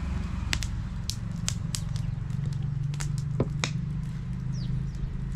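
Wood fire crackling, with about a dozen sharp, irregular pops over a steady low drone.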